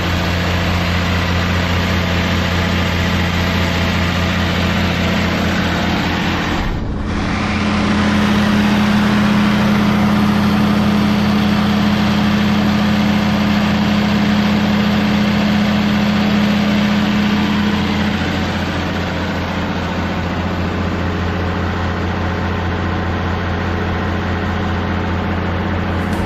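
Heavy engine running steadily at a constant speed, a low hum over a wide hiss. There is a brief dropout about seven seconds in, and after it the hum is a little louder for about ten seconds.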